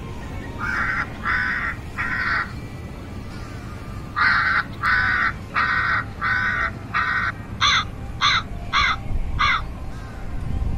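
A crow cawing: three harsh caws, then after a pause a longer run of about ten, the last few shorter and more clipped.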